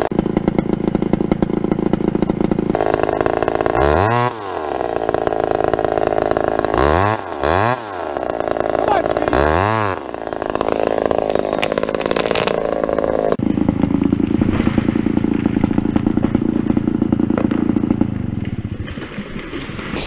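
McCulloch Pro Mac 570 two-stroke chainsaw running at high revs, its engine pitch dipping and climbing back again about four, seven to eight, and ten seconds in.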